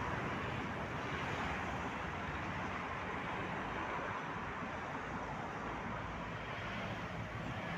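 Steady city road traffic: cars and a coach passing on a multi-lane street.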